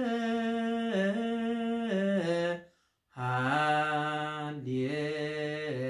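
A man singing a Ge'ez Orthodox hymn (mezmur) alone without accompaniment, drawing out long held notes that step up and down in pitch. He breaks off for a breath about three seconds in and comes back on a lower note.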